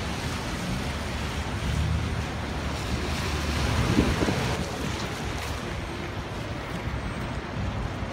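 City street traffic noise, a steady rumble of passing vehicles, with wind buffeting the microphone; a brief louder swell about four seconds in.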